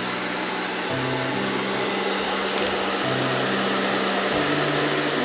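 Vacuum cleaner running steadily, a continuous rushing of air with a thin high whine.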